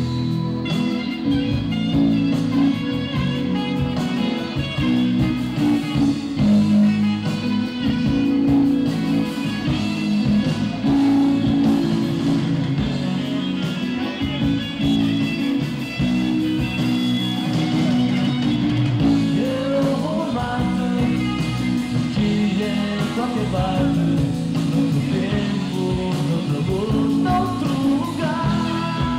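Rock band playing live on stage: electric guitars over bass and a drum kit, one steady loud song.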